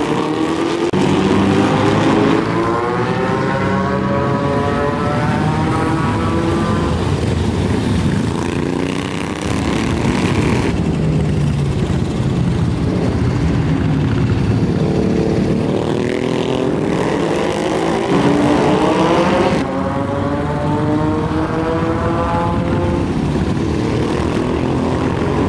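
Motorcycle engines revving hard as the bikes accelerate along the track, their pitch climbing again and again as the riders go up through the gears. The sound changes abruptly twice, about eleven and twenty seconds in.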